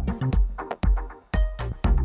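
Electronic background music with a steady beat of kick drum and bass, about two beats a second.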